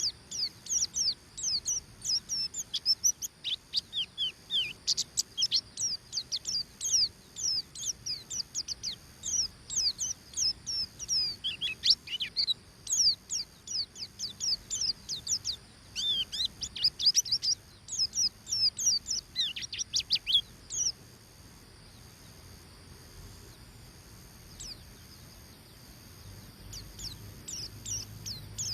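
Oriental white-eye (pleci buxtoni) singing its fast 'ngeriwik' song: a rapid stream of short, high, falling notes, several a second. The song breaks off about two-thirds of the way through and picks up again near the end. This excited, full song is used by bird keepers to spur other white-eyes into singing.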